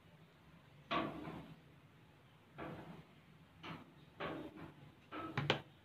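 White fluffy slime being squeezed by hand and put down on a table: about five short squelches and soft knocks, the first about a second in and the loudest.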